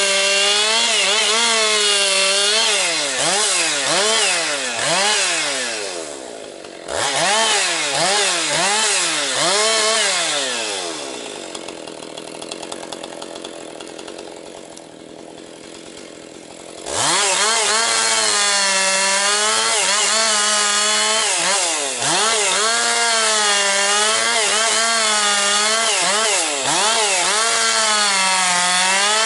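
Husqvarna 262XP two-stroke chainsaw cutting firewood at full throttle, its engine pitch dipping and recovering as the chain bogs under load in the wood. It eases off briefly about six seconds in, then about ten seconds in falls back to idle for several seconds before revving back up sharply and cutting again.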